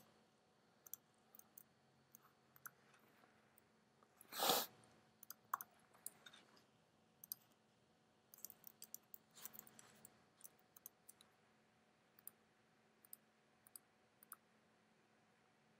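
Faint, irregular clicks of a computer mouse being clicked while shapes are selected and moved on screen, with a brief louder puff of noise about four and a half seconds in.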